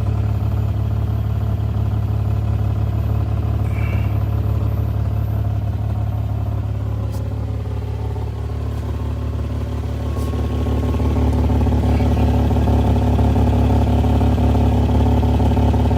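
1989 Toyota Supra's 7M-GE straight-six engine running steadily, then picking up speed and running louder from about eleven seconds in. The owner hears a knock from it around 1800–2000 rpm and wonders whether the valves are the cause.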